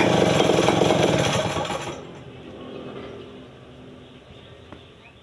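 Stihl 070 two-stroke chainsaw idling steadily while it warms up, then dying away about two seconds in, leaving only faint background.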